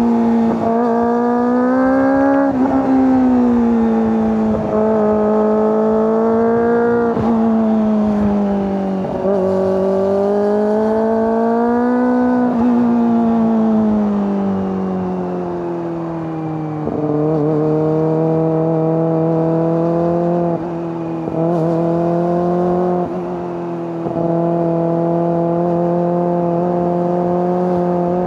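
Kawasaki ZX-25R's inline-four engine and exhaust under way, the revs climbing and falling every couple of seconds with brief dips in between. Past the middle the note drops lower and holds steadier, broken by a few short dips.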